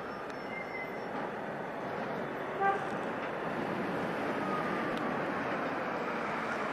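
Former Hong Kong double-deck tramcar running on rails, a steady running noise, with one short pitched toot about two and a half seconds in.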